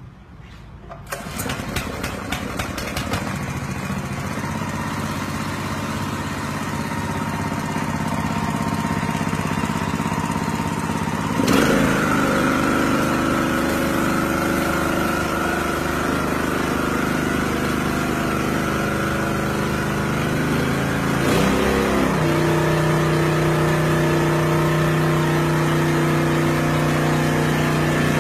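Small petrol engine of a portable high-pressure sprayer starting about a second in, then running steadily. Its sound changes abruptly about eleven seconds in and again about twenty-one seconds in, then holds a steady, lower-pitched note.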